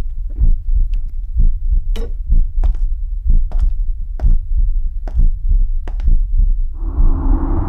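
Suspense sound design: a loud, low, throbbing heartbeat-like pulse with sharp ticks scattered over it. About seven seconds in, a sustained gong-like ringing tone swells in.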